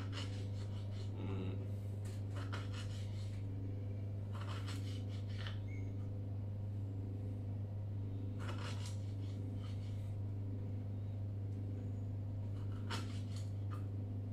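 Knife slicing firm salted daikon radish, in several short runs of quick cutting strokes with pauses between them. A steady low hum runs underneath.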